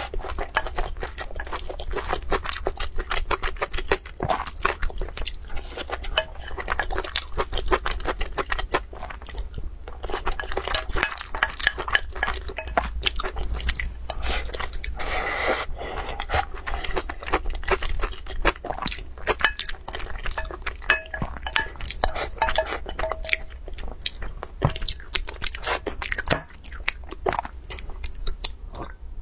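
Close-miked eating: rapid, wet chewing and crunching clicks of a mouthful of rice taken from a spoon, going on without a break. Near the end, sips and swallows of a drink.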